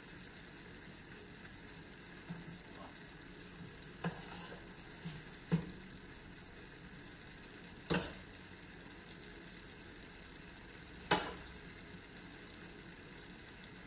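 Faint steady sizzle of chicken and vegetables frying in a stainless steel wok, broken by a few sharp knocks of a utensil on the metal pans as cooked rice is spooned in, the loudest two in the second half.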